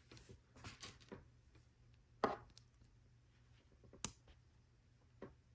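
Plastic LEGO pieces being handled and pressed together: scattered light clicks and taps, with sharper snaps about two seconds in and about four seconds in.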